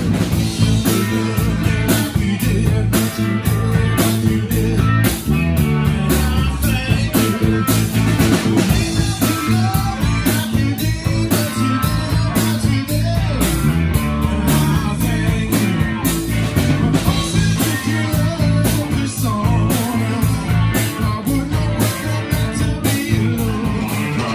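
Rock band music: electric guitar, bass guitar and drum kit playing a steady beat, with singing.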